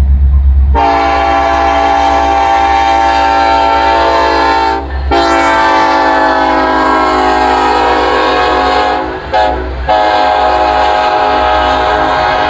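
BNSF diesel locomotive's air horn sounding close by in the grade-crossing pattern: a long blast, a second long blast, a short one, then a long one. A low rumble from the passing locomotives and coal train runs under it.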